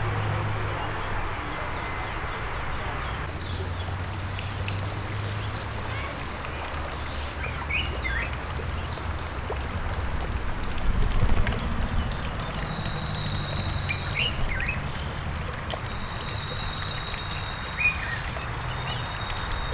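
Birds calling with short chirps several times over a low, steady outdoor rumble.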